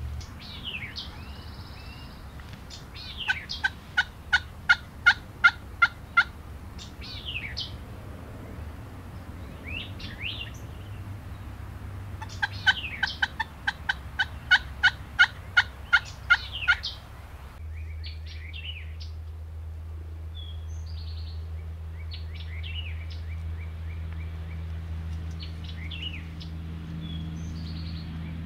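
Two series of turkey calls, each a run of about a dozen loud, evenly spaced notes at about four a second lasting some three seconds, with songbirds chirping between and after them.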